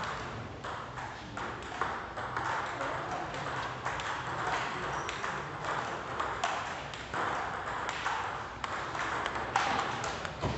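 Table tennis ball being hit back and forth in a rally: sharp clicks of ball on bat and ball on table, coming irregularly one after another.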